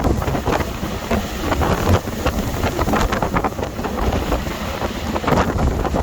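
Storm-force wind gusting against the microphone: a loud, buffeting rumble that swells and dips from gust to gust.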